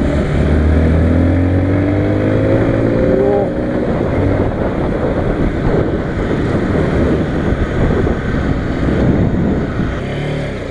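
NK 150 dirt bike's 150 cc engine pulling up through the revs, its pitch rising for about three seconds, then running on under wind rushing over the microphone as the bike rides along.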